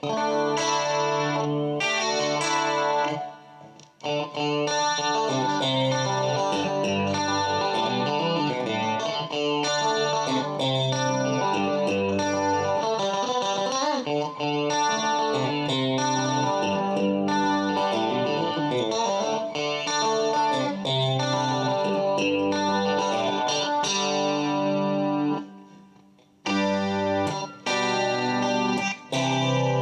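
1985 Matsumoku-made Westone electric guitar played, with ringing chords and single notes. The sound fades out briefly twice, about four seconds in and near the end, before the playing resumes.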